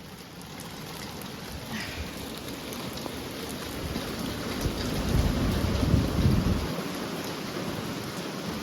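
Thunderstorm downpour of rain mixed with pea-sized hail falling on surfaces, with a low rumble of thunder swelling about five seconds in and fading a couple of seconds later.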